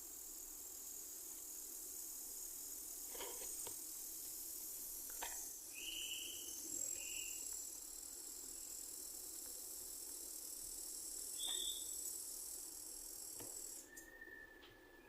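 Steady high-pitched insect chirring with a few short chirps and faint clicks; it cuts off suddenly near the end.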